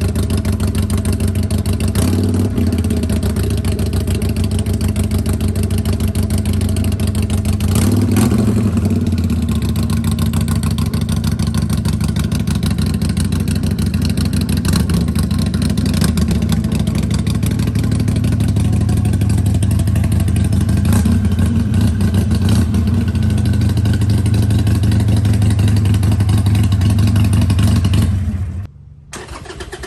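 Harley-Davidson Iron 883's air-cooled 883 cc V-twin running through aftermarket or stock slip-on mufflers at a steady idle, with short throttle blips about 2 and 8 seconds in. The sound drops away abruptly for about a second near the end, then returns.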